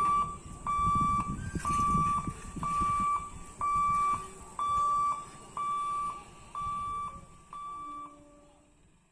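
Level-crossing warning buzzer beeping about once a second, nine steady single-pitch beeps each about half a second long, sounding while the boom barrier lifts. The beeps grow quieter and fade out near the end.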